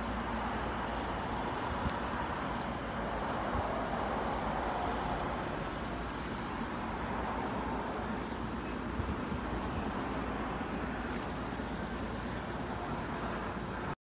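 Steady background traffic noise: an even hum of road vehicles with no single engine standing out, and a few faint clicks.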